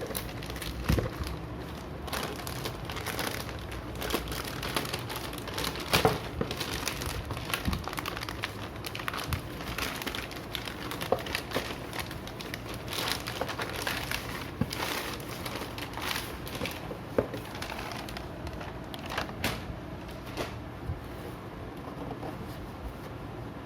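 Packaging being handled while a printer toner cartridge is unboxed: irregular crinkling and rustling with scattered sharp clicks and knocks, thinning out near the end.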